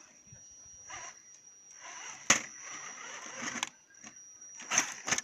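Electric RC scale crawler working its way over rocks: a thin, steady, high-pitched motor whine, broken by a few scrapes and knocks. The loudest are a sharp knock about two seconds in and two more near the end.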